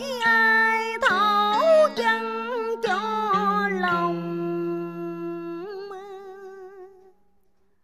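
Woman singing in vọng cổ style, drawing out one long melismatic vowel with wide vibrato over a sustained low backing note. The backing note stops about three-quarters of the way through, and the voice wavers on alone and fades out near the end.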